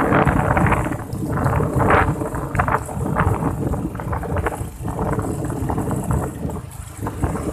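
Strong wind buffeting the microphone, a loud, gusty rumbling noise that surges and eases unevenly.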